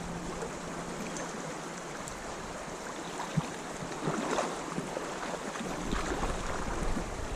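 Steady rush of creek water running over a shallow stream bed, with a sharp tick about three and a half seconds in and a few faint splashy sounds just after.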